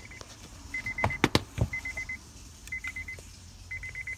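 Honda Accord's warning chime beeping in short rapid bursts, about once a second, with a few sharp knocks about a second in.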